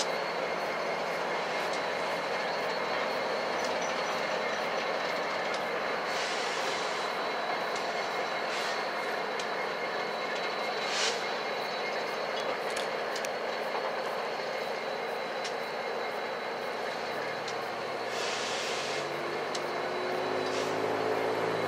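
Diesel freight locomotives, an EMD SD70M-2, a GE ES44DC and an EMD SD70MAC, running slowly with their engines and cooling fans going, under a steady high whine. Short hisses come through three times, and the low engine hum grows deeper and louder over the last few seconds.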